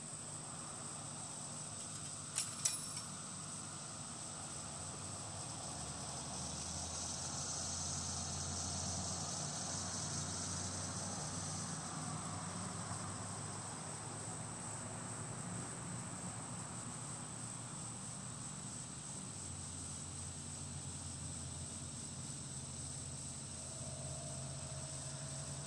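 Steady high-pitched outdoor insect chorus, with a low hum underneath and two sharp clicks about two and a half seconds in.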